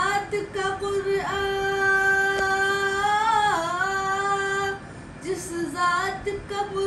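A boy singing a naat unaccompanied, holding one long note for about three and a half seconds with a wavering dip near its end, between shorter sung phrases.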